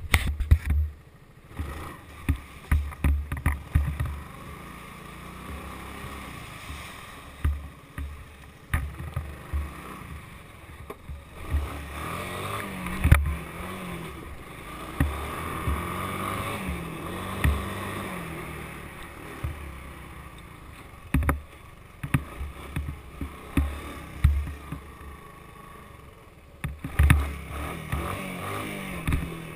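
Honda three-wheeler's engine running while ridden, its pitch rising and falling again and again as the throttle is opened and closed, with many short low thumps mixed in.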